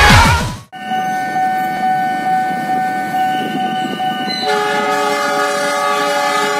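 Steady multi-note railway warning sound: a held chord of tones that starts abruptly and fills out with extra notes about four and a half seconds in.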